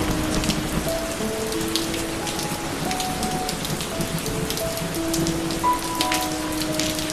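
Steady rain with sharp ticks of individual drops, over a slow melody of long held notes.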